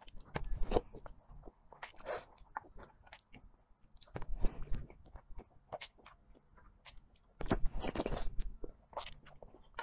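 Close-miked mouth sounds of someone eating soft cream-covered sponge cake: wet smacking and chewing in four bursts with short quiet gaps between.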